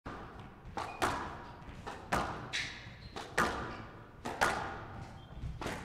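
Squash rally: the ball cracking off rackets and the court walls, the impacts coming in quick pairs about once a second, each one echoing in the court.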